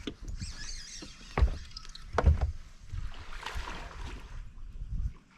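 Knocks and bumps of handling on a fishing boat, with two sharp knocks about a second and a half and two seconds in, over uneven low rumbling.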